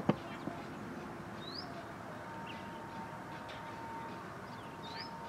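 Outdoor ambience with a bird calling: a short rising chirp twice, a few seconds apart, over a steady background hiss. A single sharp click right at the start and a faint steady tone in the middle.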